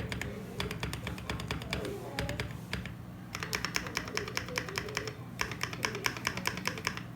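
Typing on an EverGlide SK68 custom mechanical keyboard with lubed Gateron Yellow linear switches, a polycarbonate plate, full foam and PBT keycaps: a rapid run of key strokes, several a second, with brief pauses about three and five seconds in.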